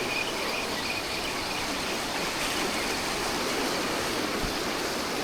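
Steady wash of ocean surf.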